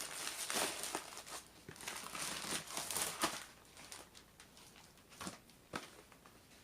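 Packaging crinkling and rustling as a crushed parcel is opened by hand, busiest for the first few seconds, then thinning to a few light rustles and clicks.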